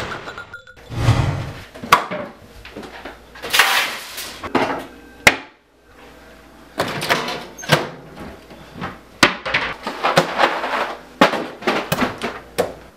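Cupboard and cabinet doors opened and shut again and again, with knocks and clatter of rummaging through them.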